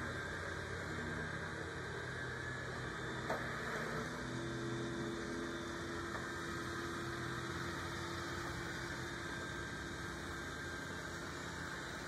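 Dreame D10 Plus Gen 2 robot vacuum running: a steady motor hum and whir, with a faint click about three seconds in.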